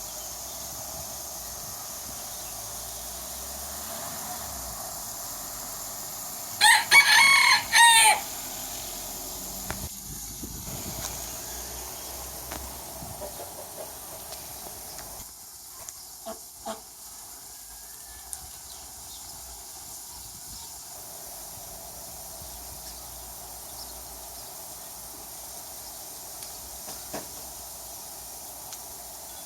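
A rooster crowing once, about seven seconds in, for roughly a second and a half, its pitch rising and then falling. A steady hiss runs underneath.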